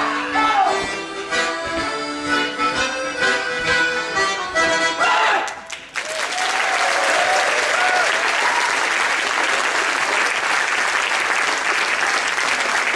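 Accordions playing a traditional dance tune that ends about five and a half seconds in with a shout, followed by an audience clapping and cheering steadily.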